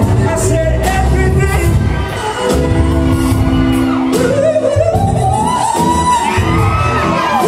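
Live R&B concert: a man singing a gliding melody over keyboard and bass, with a held keyboard chord near the middle and shouts from the crowd, echoing in a large hall.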